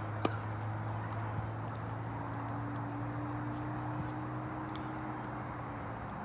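Tennis ball impacts: a sharp pop about a quarter second in and a fainter one about a second later, over a steady low hum.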